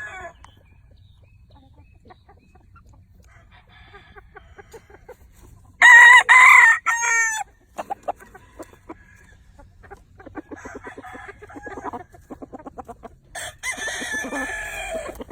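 Gamefowl roosters crowing: one loud, close crow about six seconds in and another, fainter crow near the end. In between there is a run of quick, short clucks.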